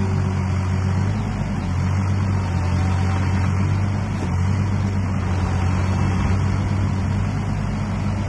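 Wacker Neuson EZ28 mini excavator's diesel engine running steadily at idle.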